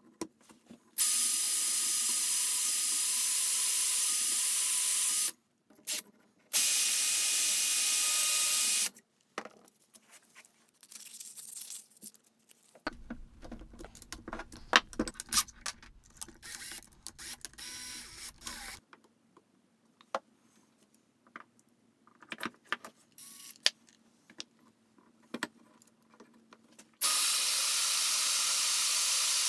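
DeWalt 18V cordless drill running steadily in two bursts of about four and two seconds, drilling through a lathe chuck used as a guide into a steel faceplate. Then a long stretch of scattered metal clicks and knocks as the chuck and faceplate are handled on the bench, and the drill starts again near the end, boring into a wooden block.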